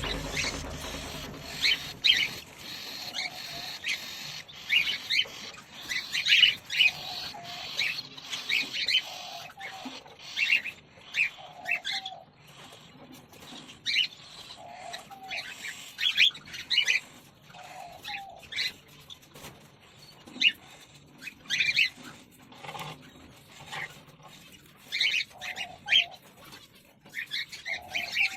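Cockatiels chirping: short, repeated calls every second or two.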